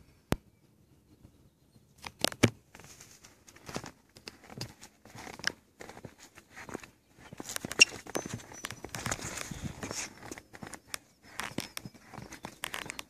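Irregular footsteps and shoe scuffs on a concrete skatepark bowl, with sharp knocks and rubbing from handling the recording phone; the scuffing and rustling is densest in the middle stretch.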